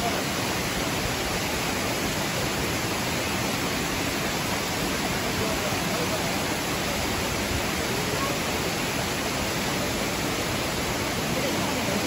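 Steady rushing of a waterfall's falling water, an even unbroken wash of noise, with faint voices over it now and then.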